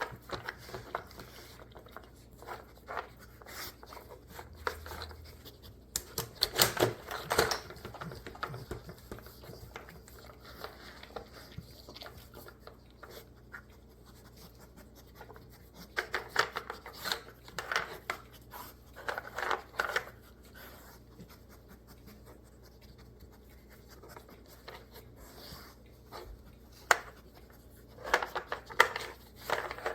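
A dog working at a game: scattered scratching and clattering as it paws and noses at the pieces, with three busier stretches of louder clatter, near the start-third, around the middle and near the end.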